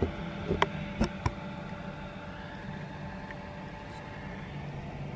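Steady hum inside a parked car's cabin, its engine and air conditioning running. Three sharp clicks and knocks in the first second and a half as the phone camera is handled.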